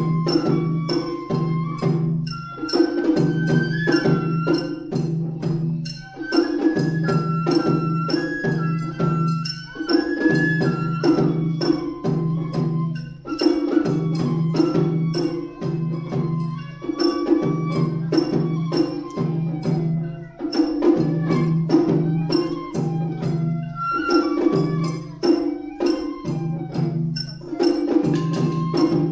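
Matsuri bayashi festival ensemble playing: a shinobue bamboo flute carries a melody of held notes that step up and down. Under it run rapid, dense strokes on the shime-daiko rope-tensioned drums, with a larger drum beneath.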